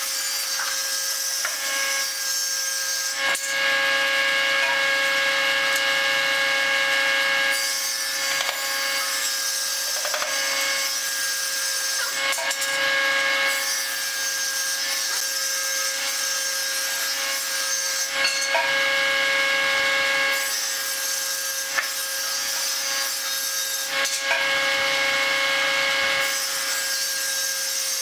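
Steady machine noise: a constant hum with several held tones under a hiss that grows louder and brighter for stretches of a few seconds at a time.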